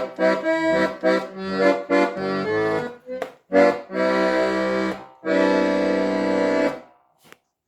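A 1930 Hohner Organola accordion, not yet repaired, being played: a run of short notes and chords, then two long held chords that stop a little before the end, followed by a brief faint knock.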